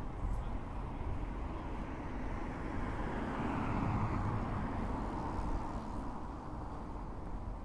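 Street traffic: a steady road hum with a vehicle passing, its noise swelling to a peak about halfway through and then fading.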